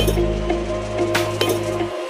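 Background music, with a few light clinks of miniature clay bricks knocking against each other as they are set in a row, two of them close together about a second in.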